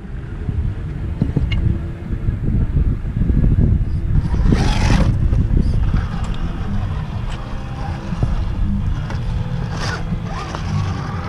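Axial UMG10 RC crawler's Hobbywing AXE brushless motor and drivetrain whining faintly as it climbs rock, with two brief scrapes, about five and ten seconds in, under a heavy, fluctuating low rumble of wind buffeting the microphone.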